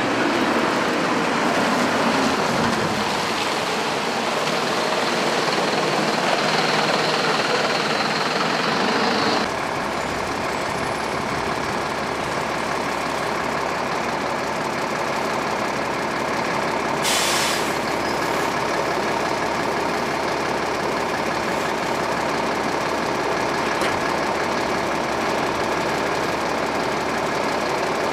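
Buses running and moving, with their engines and road noise. The sound changes abruptly about a third of the way through to a steadier low engine rumble, and a short air-brake hiss comes about halfway.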